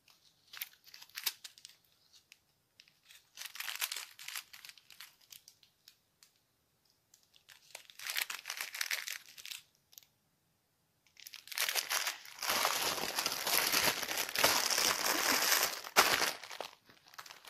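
Small plastic bags of diamond-painting drills crinkling as they are handled: three short spells, then continuous and louder through the last six seconds or so as the bags are packed together into a larger clear plastic bag.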